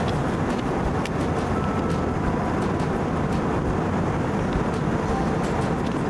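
Steady rushing noise inside a jet airliner's cabin, from the engines and the air going past. Faint crinkles of paper being folded by hand sound now and then over it.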